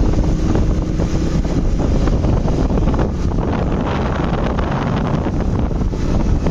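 Wind buffeting the microphone: a loud, steady low rumble with irregular gusty crackle.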